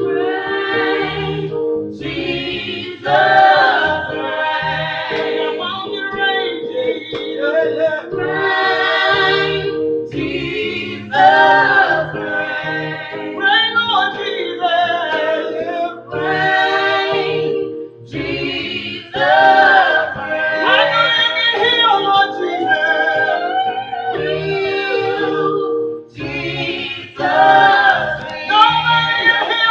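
Gospel choir singing phrase after phrase over sustained accompanying chords and a steady low beat.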